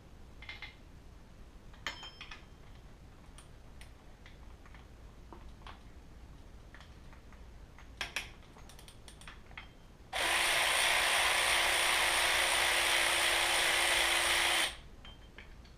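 Cordless electric ratchet running steadily for about four and a half seconds, spinning out a bolt, after a few light clicks of tools being handled; it starts and stops abruptly.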